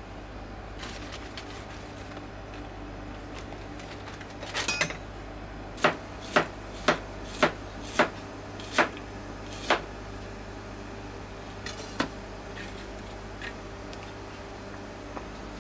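Kitchen knife slicing fresh ginger root on a plastic cutting board: a run of seven sharp knocks of the blade on the board, about two a second, with one more a couple of seconds later, over a steady low hum.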